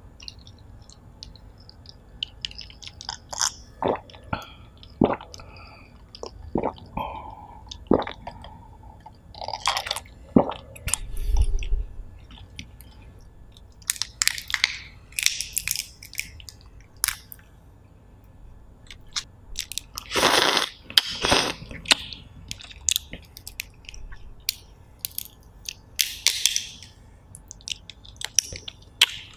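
Close-miked eating of steamed lobster: shells cracked and peeled apart by hand in scattered crisp crackles and clicks, with wet chewing in between.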